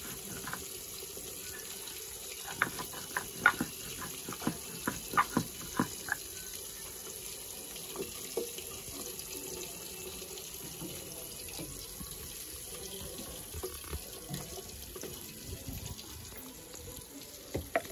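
Fish pieces frying in oil in a wok, a steady sizzle, with a run of sharp clicks for a few seconds near the start.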